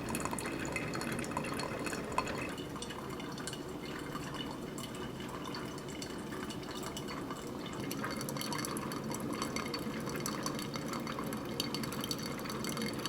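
Mr. Coffee Perfect Brew drip coffee maker brewing, with coffee trickling and dripping steadily into the carafe.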